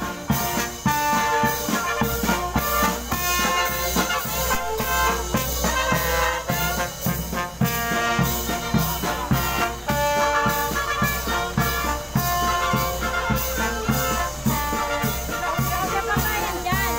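A brass band playing a tune over a steady drum beat.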